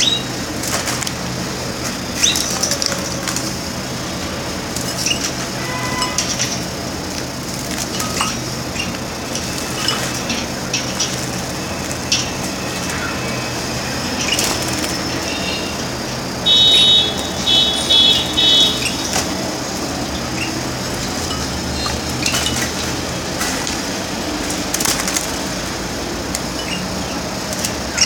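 Canaries bathing in a glass water bowl: scattered splashes and wing flutters. Past the halfway mark a canary gives a short run of loud, high chirps.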